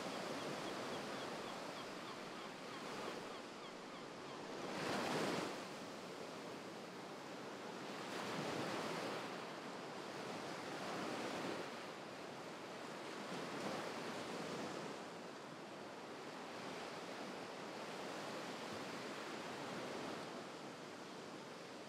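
Waves washing in: a steady rushing noise that swells and ebbs every few seconds, loudest about five seconds in.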